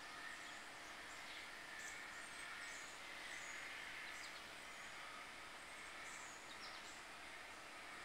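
Faint outdoor ambience: small birds giving short, high chirps every second or so over a steady high-pitched hiss.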